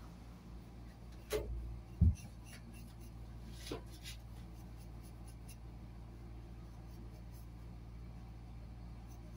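Straight razor scraping across a bald scalp in a few short strokes, with light ticks as the blade is lifted and set down. A single dull thump about two seconds in, and a steady low hum underneath.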